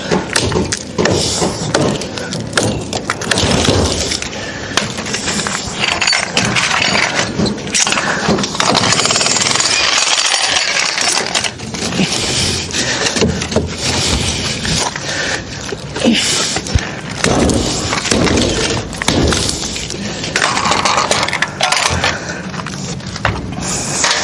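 Concrete being broken up by percussive demolition work: a dense run of rapid impacts and chipping with a few short pauses.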